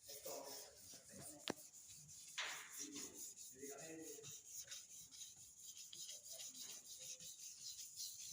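Sandpaper rubbed over polyester body filler (putty) on a car panel: faint, quick, even rasping strokes, with one sharp click about a second and a half in.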